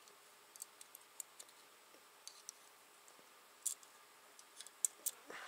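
Faint, irregular small metallic clicks and ticks, about a dozen: valve keepers being set with a tiny screwdriver into the spring retainer of a 12-valve VR6 cylinder head while the valve spring is held compressed.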